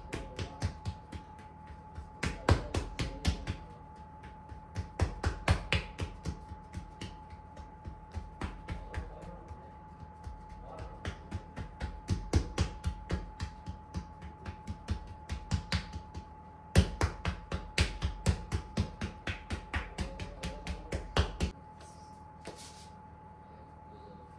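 Runs of quick, sharp knocks, about three to four a second, over a faint steady hum; the loudest run starts suddenly about 17 seconds in and cuts off about 4 seconds later.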